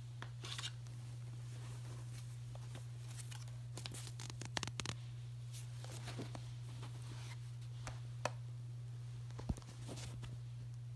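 Faint scattered rustling and light clicks over a steady low hum, with a few sharper ticks around the middle.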